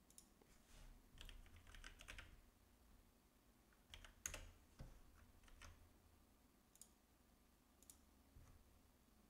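Faint computer keyboard typing: scattered keystrokes in short runs, the loudest clicks about four seconds in.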